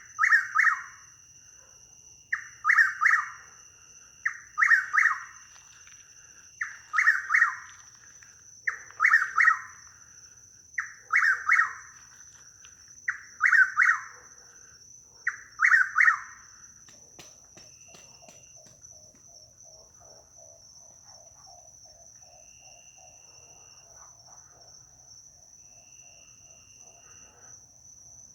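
Chuck-will's-widow singing its repeated call eight times, about every two seconds, then falling silent. A faint, rapid pulsing follows for about ten seconds: the slapping and twanging sounds the bird makes as it is flushed and flies off. A steady high insect trill runs underneath.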